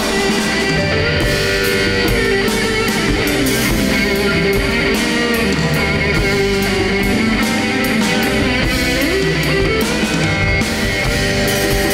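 Live rock band playing, an electric guitar leading over drums and bass.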